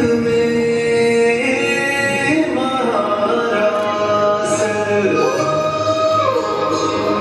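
Music: a song with a sung melody of long held notes that glide between pitches, played for a group dance.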